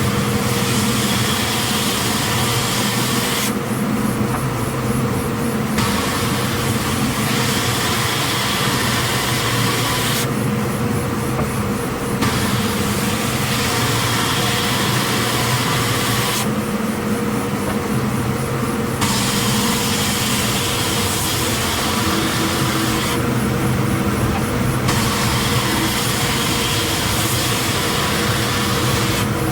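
Timesaver wide belt sander running with a coarse 36-grit belt, a steady motor hum under a high abrasive hiss. The hiss drops away for a couple of seconds about every six and a half seconds, then comes back.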